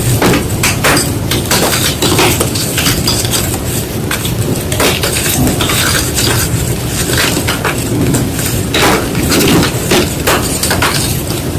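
White gym chalk being crushed, a dense, continuous run of crisp crunches and crackles.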